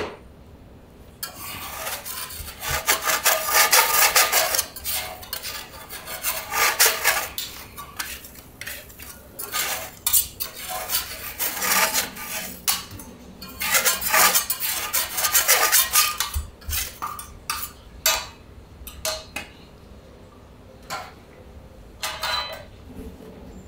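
Metal teppanyaki spatulas scraping and clinking across a steel griddle plate in long, rasping strokes, thinning out to a few single clinks near the end.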